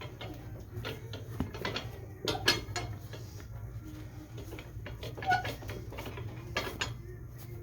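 Scattered light knocks and clicks of a work boot and hand tools being handled at a cobbler's bench, over a steady low hum.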